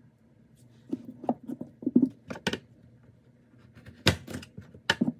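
Kitchen handling at a counter: scattered sharp taps and clacks of a utensil and dishware against a plate. They come in two clusters, about a second in and about four seconds in.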